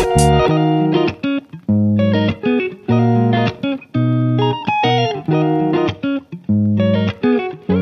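Background music: plucked electric guitar notes over bass in a regular rhythm.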